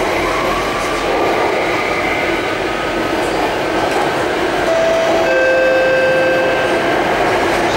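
Alstom Metropolis C830 metro train running, heard from inside the car: a steady rush and rumble of running noise. A few steady whining tones join it about five seconds in.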